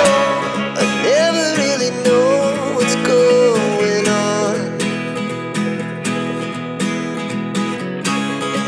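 Background music with strummed acoustic guitar and a gliding melody line; the deep bass of the preceding section drops out at the start.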